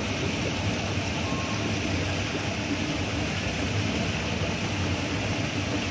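Steady rushing of flowing river water, an even noise with a low rumble and a hiss, unchanging throughout.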